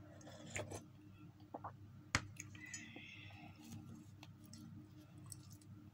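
Quiet meal-handling sounds: faint clicks and rustles, with a sharp knock about two seconds in as the coffee mug is set down on the table, then soft tearing of kubos flatbread.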